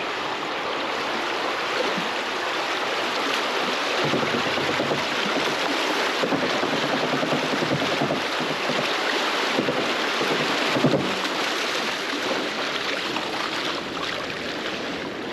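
Water rushing steadily under a stand-up paddleboard as it shoots down a weir's boat slide, with one brief thump about eleven seconds in.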